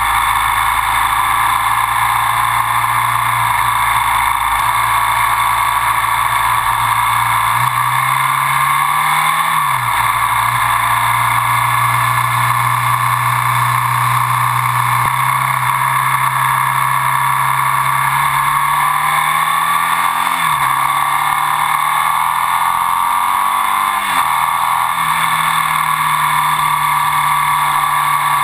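Ducati Sport 1000's air-cooled L-twin engine running under way on the road. Its pitch swells and dips a few times as the throttle and gears change, over a steady rush of noise.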